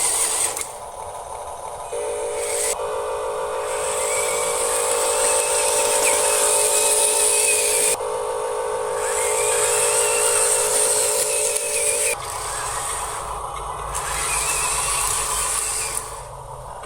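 Electric motors and plastic gearboxes of Huina RC construction models whirring, starting and stopping in stages as different functions are run. A steady buzzing whine comes in about two seconds in and stops about twelve seconds in, then a lower hum takes over for a few seconds.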